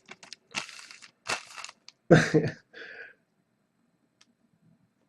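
Trading-card pack wrapper crinkling and tearing as cards are pulled out and handled, in a string of short rustles over the first three seconds. The loudest comes a little after two seconds.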